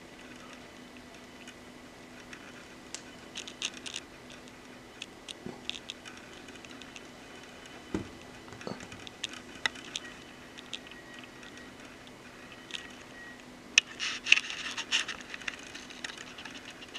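Handling noise from an LED-matrix hourglass being tilted and turned by hand: scattered light clicks and scrapes, with a denser burst of clicking and scraping about fourteen seconds in. A faint steady hum runs underneath.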